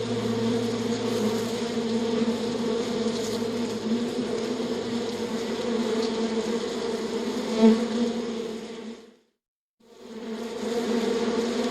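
Steady buzzing of a flying bee or wasp's wings, a close, even hum. It swells briefly about two-thirds through, fades out to a moment of silence, then comes back near the end.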